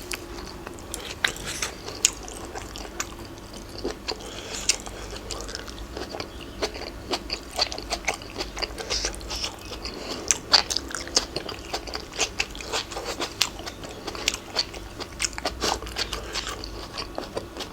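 A person chewing and crunching mouthfuls of spicy Thai seafood salad close to the microphone, with many short sharp clicks spread unevenly throughout.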